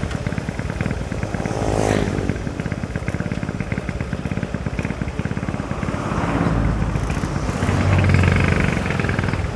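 Motorcycle engine running under way, with a steady rapid beat of firing pulses. It rises briefly in pitch about two seconds in and grows louder again between about six and eight seconds in.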